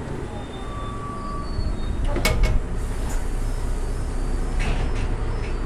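Inside a moving city bus: a steady low engine and road rumble, with a sharp rattling clatter of the bus's fittings a little over two seconds in and a few lighter rattles near the end.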